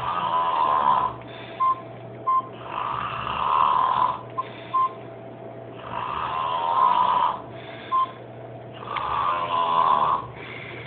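A man snoring heavily in his sleep: four long snores about three seconds apart, with brief squeaks in the pauses between them.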